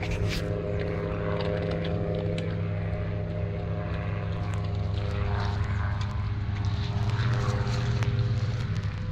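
A small engine running steadily at an even pitch, growing a little louder toward the end.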